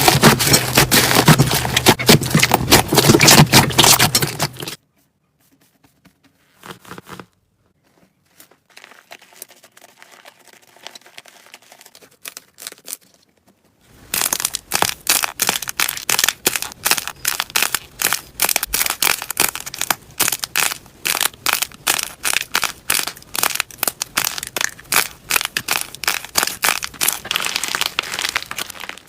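Slime being squeezed and poked by hand, with dense crackling and popping. The sound drops to a faint rustle for about nine seconds, then comes back as a rapid run of sharp pops and clicks.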